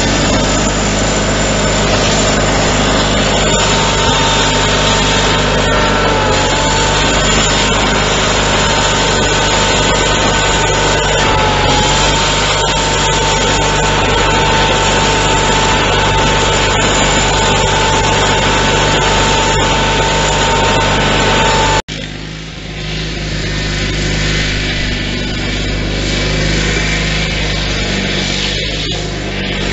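Simplicity 20 GTH garden tractor engine running steadily while plowing snow, heard close up from the seat with a steady high whine over it. About 22 seconds in the sound cuts off sharply, and the tractor is then heard farther off and quieter.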